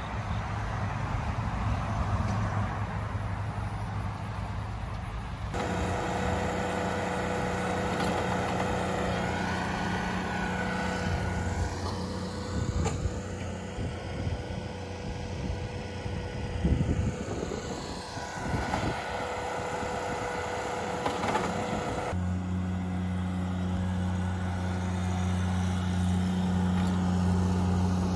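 An engine running steadily with a low, even hum. The sound changes abruptly twice, about five seconds in and again about twenty-two seconds in. In the middle stretch a steadier higher tone rides over the engine.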